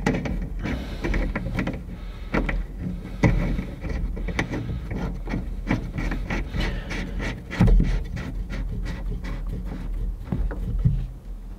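A braided stainless supply-line nut being threaded by hand onto a chrome quarter-turn stop valve, giving many small irregular clicks and rubbing sounds of metal on metal, over a steady low hum.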